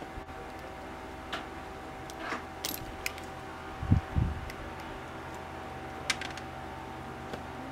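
Hand-working sounds of cord and plug repair: scattered light clicks and taps from wire cutters, cord and plug parts, with two low thumps close together about four seconds in, over a steady faint hum.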